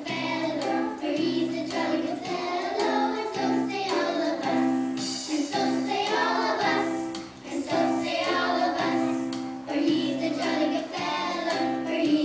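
A group of young children singing a song together over a steady instrumental accompaniment.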